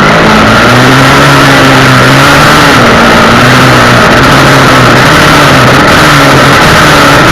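Honda XR Tornado motorcycle's single-cylinder engine running under way, its note rising and falling a little with the throttle, over a loud, even rush of noise.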